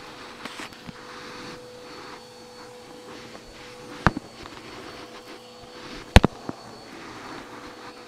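Vacuum cleaner running steadily with a constant whine, picking up furnace-room dust and dirt, with sharp knocks about four seconds in and a quick double knock about six seconds in.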